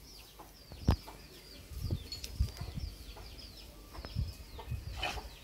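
Birds chirping: a steady run of short, high, falling chirps. A sharp knock comes about a second in, with a few low thuds.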